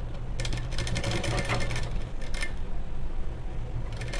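Sewing machine running and stitching along a blouse neckline: a steady hum with the quick, even clatter of the needle.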